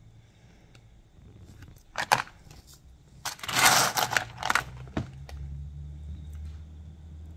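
Close handling noise of fingers gripping and turning a rough opal: a couple of sharp clicks about two seconds in, then about a second and a half of loud scraping and rustling, and a sharp knock. A steady low rumble follows.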